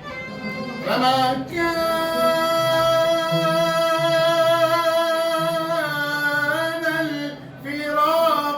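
Arabic song with a male singer holding one long steady note for about four seconds, then turning into a wavering, ornamented phrase, over plucked-string accompaniment with a moving bass line.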